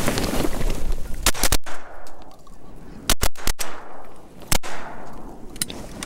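Shotgun blasts from several duck hunters firing at passing mallards: about six sharp shots in quick succession. Two come about a second in, three close together around three seconds, one near four and a half seconds, and a fainter one near the end.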